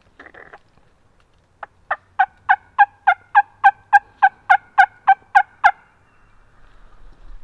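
A long run of about fifteen evenly spaced turkey yelps, roughly three or four a second, lasting about four seconds.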